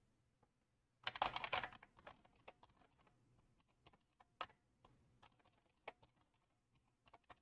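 Faint typing on a computer keyboard: a quick run of keystrokes about a second in, then scattered single keystrokes.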